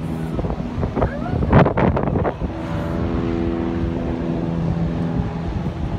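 A motor's steady drone sets in about two and a half seconds in and fades near the end, over wind buffeting the microphone. A few brief knocks come shortly before it.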